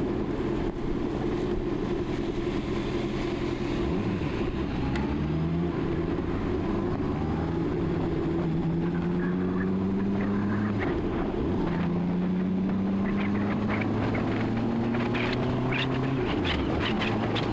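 Honda CB650R's inline-four engine pulling through the gears while riding. Its pitch climbs steadily and drops back at each upshift.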